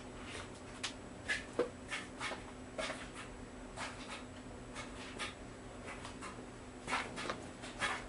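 A small dog moving about in a bee costume: light rustling and scattered soft clicks over a steady low hum.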